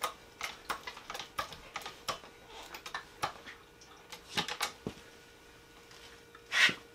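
Foot-pumped motorcycle lift jack being worked: a run of sharp, irregular metal clicks and knocks from the pedal and mechanism, with one short, louder clank near the end.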